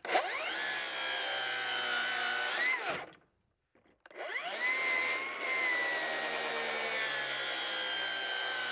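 Milwaukee 2830-21HD M18 FUEL 7¼-inch cordless rear-handle circular saw cutting through framing lumber twice. The first cut lasts about three seconds, its pitch rising as the blade clears the board before it stops. The second cut starts about a second later and runs on. The motor holds its speed through the wood without bogging down.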